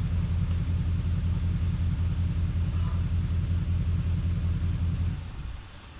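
Truck engine idling with a steady, evenly pulsing low rumble, then shut off about five seconds in.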